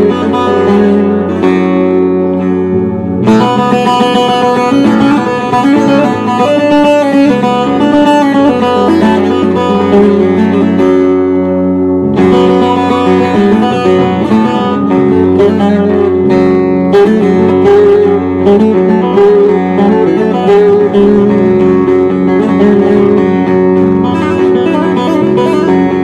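Bağlama (Turkish long-necked saz) played solo with a plectrum: a continuous instrumental passage of a Turkish folk melody, fast-picked notes over a steady drone of the lower strings.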